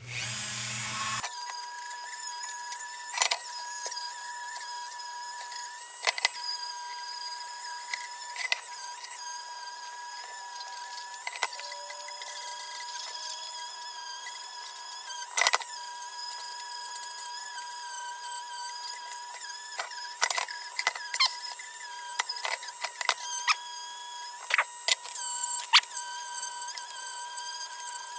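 A small power tool runs a 400-grit nylon abrasive over the lantern's metal, making a steady high whine with scattered ticks and scrapes that grow busier near the end.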